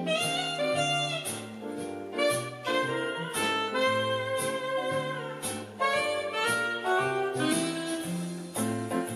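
Background music with a moving bass line and a steady beat.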